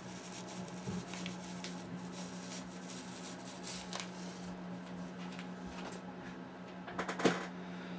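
Faint rustling and crackling as a clump of ice wing fiber is pulled out and handled, with a small cluster of louder crackles near the end, over a steady low hum.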